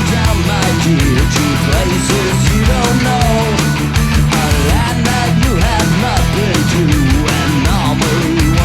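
Loud rock music with distorted electric guitar and a driving drum beat.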